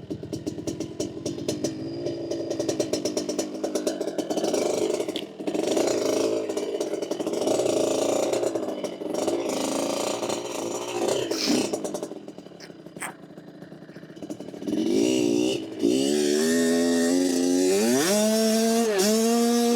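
Dirt bike engine running at low, varying revs with some clatter. About fifteen seconds in it gets louder and revs up, its pitch climbing in stages as the bike is put under throttle.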